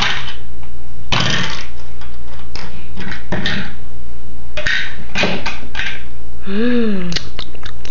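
Plastic cups, lids and small toy pieces clattering and rattling in short, irregular bursts as a toddler handles them. About three-quarters of the way through, a voice hums a short rising-then-falling 'mmm'.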